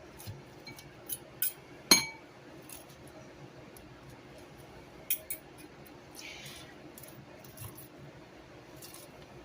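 Kitchenware clinking as salad is put together in a bowl: a handful of sharp taps and clinks, the loudest about two seconds in with a brief ring, and a short scrape a little after six seconds.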